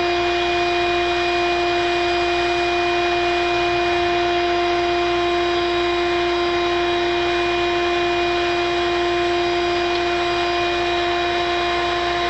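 A vacuum motor running steadily, a constant whine that does not change in pitch or level.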